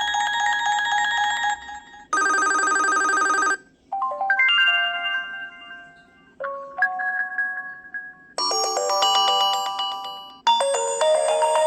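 Preloaded ringtones of an HTC Desire 510 playing one after another: about six different electronic tones and short melodies, each cut off after one to two seconds as the next begins.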